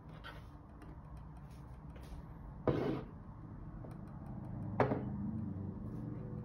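Dishes knocking: two sharp clinks about two seconds apart, over a low steady hum.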